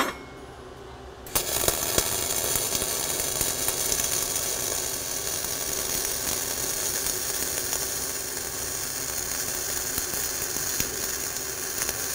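Flux-core wire-feed welding arc, set hot at 25 volts with a wire feed speed of 300, struck about a second in and then crackling steadily as the overhead root pass is run on a beveled steel plate.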